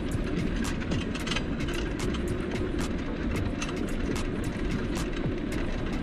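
Toyota motorhome driving on a paved road: a steady low rumble of engine and tyres, with frequent light clicks and rattles several times a second.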